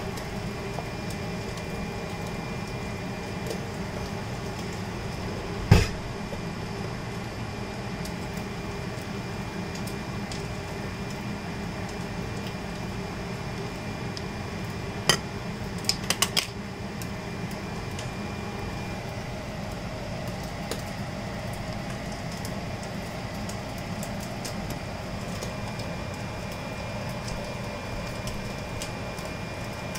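Handheld can opener worked on a can of tomato sauce: a sharp metal click about halfway through, then three quick clicks within the next second or so. A steady kitchen hum runs throughout, and a single loud knock comes about six seconds in.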